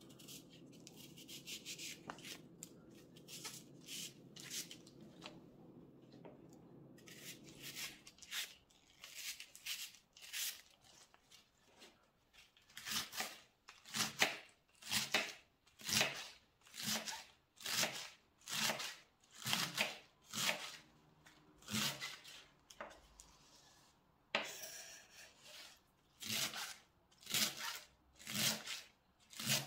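Kitchen knife slicing through leeks on a bamboo cutting board, at about one cut a second once it gets going. First come fainter, uneven cuts as the root end is trimmed. About two-thirds through there is a short pause and a brief scrape before the slicing resumes.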